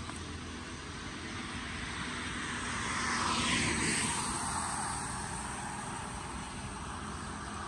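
A vehicle passing on a wet road, its tyre hiss swelling to a peak about halfway through and dropping in pitch as it fades, over a steady background of traffic noise.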